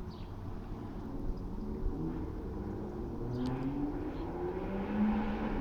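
A road vehicle's engine running over a steady low rumble, its pitch rising through the second half as it accelerates.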